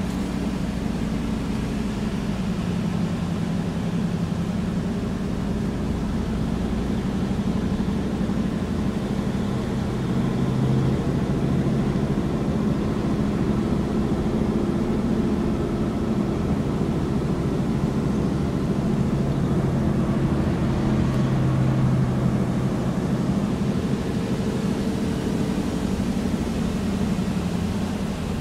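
Motor vehicle engine running steadily at low speed with road noise, a low hum that shifts a little in pitch as it keeps pace behind climbing road cyclists.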